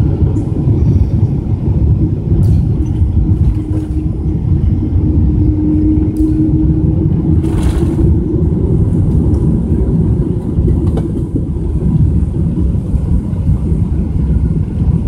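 Steady low rumble of a Boeing 777-200's engines and airflow heard inside the cabin during landing. A hum in it rises in pitch around the middle, and there is a brief hiss near eight seconds in.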